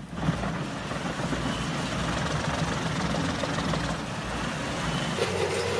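Heavy industrial wood-processing machine running: a large engine with dense mechanical noise from the machine at work. The sound changes about five seconds in, when a steady hum comes in.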